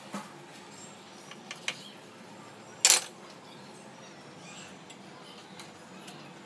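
A kitchen knife cutting raw chicken on a wooden chopping board: a few sharp knocks of the blade on the board, two close together about a second and a half in and the loudest about three seconds in, over a quiet room.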